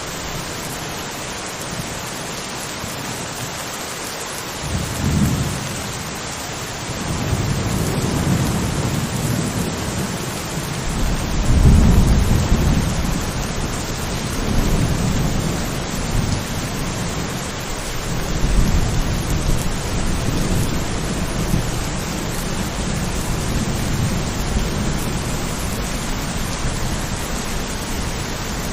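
Steady rain hissing throughout, with thunder: a first low rumble about five seconds in, then rolling rumbles that swell and fade several times, the loudest about twelve seconds in.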